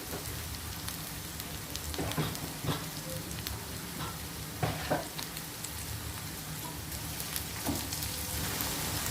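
Onion masala sizzling in oil in a kadai, a steady frying hiss with a few short scrapes and knocks of a spoon stirring it.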